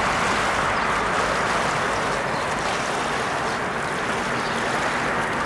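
Steady rushing of flowing floodwater, an even hiss with no breaks.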